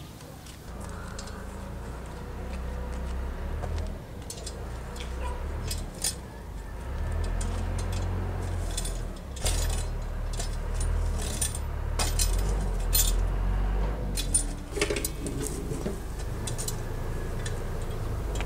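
A metal shovel scraping and clinking among charcoal embers under a clay stove, with scattered sharp metallic clinks, over a steady low rumble.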